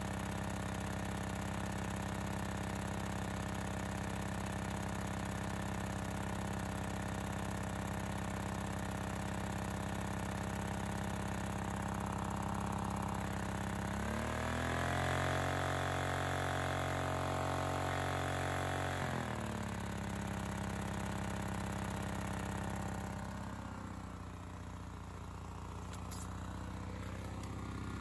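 Honda EX1000 portable generator's small engine running steadily, then revving up sharply about halfway through as a hand works the carburettor controls, holding the higher speed for about five seconds before settling back. It grows fainter near the end.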